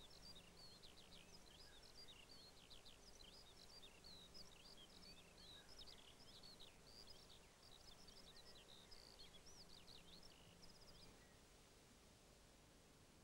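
Faint birdsong: a songbird sings a long, fast, unbroken warbling run of chirps and trills that stops near the end.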